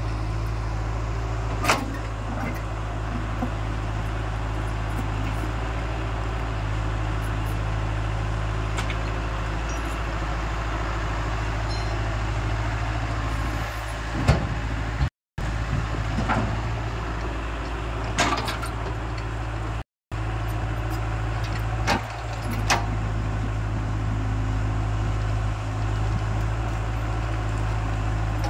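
Diesel engine of a JCB JS81 tracked excavator running steadily while it digs and loads rock, with a few sharp knocks of the bucket and stones.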